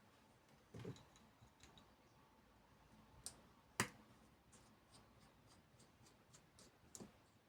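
Small tools clicking and tapping against a smartphone during disassembly: scattered light clicks, a soft thump about a second in, and one sharp click a little before the middle.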